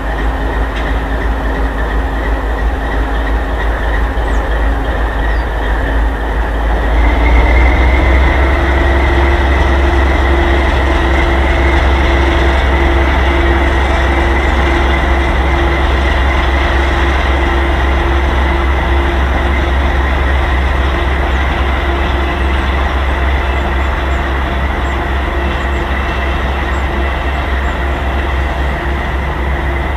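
TEM7 eight-axle diesel shunting locomotive's V12 diesel engine running under load as it hauls a freight train. About seven seconds in, the engine notches up, growing louder and a little higher in pitch, then holds steady.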